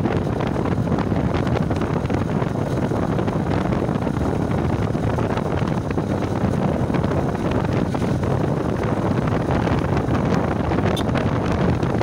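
Steady wind rushing over the microphone, mixed with the running and road noise of a Bajaj motorcycle moving at road speed.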